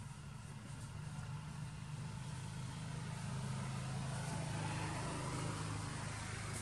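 A motor vehicle's engine humming, growing louder through the middle and easing slightly near the end.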